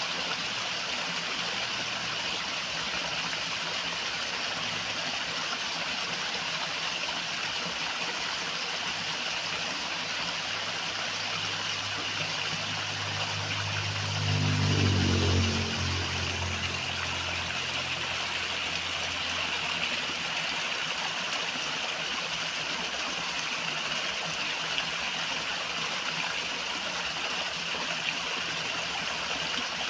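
River water rushing and burbling steadily. About halfway through, a low engine hum swells to a peak and fades away again.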